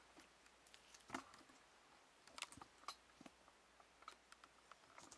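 Faint scattered clicks and taps of small screws and a steel computer case being handled, the loudest about a second in.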